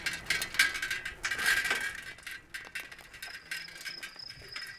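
Cycle-rickshaw bell jingling rapidly for about two seconds. From about three seconds in, crickets chirp in a faint, steady, pulsing trill.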